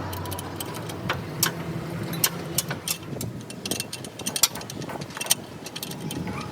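Irregular sharp metallic clicks and taps, several a second, over a steady engine hum.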